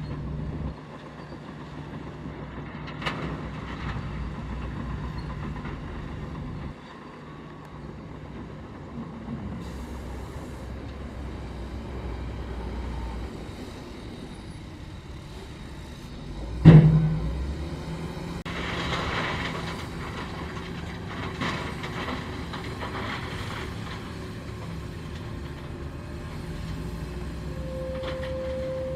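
Heavy diesel earthmoving machinery running steadily, with one loud bang about two-thirds of the way through followed by a few seconds of hissing, rattling noise. A steady high tone comes in near the end.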